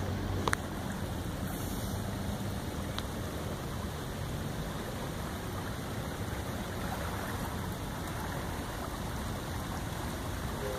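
Steady rushing of flowing floodwater, with a short click about half a second in.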